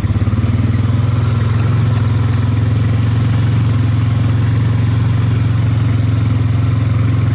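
ATV engine running at a steady speed, an even low drone with no revving.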